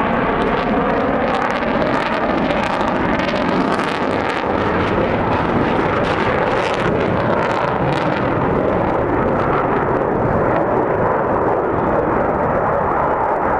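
F-15 Eagle fighter jet's twin engines rumbling loudly as the jet flies away after a low pass overhead. The sharp crackle in the roar fades about two-thirds of the way through, leaving a lower rumble.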